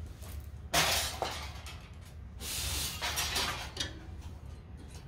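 Metal-on-metal clinking and scraping as a steel rule is laid down and shifted on a sheet of steel, in two rough spells about a second and three seconds in, over a steady low hum.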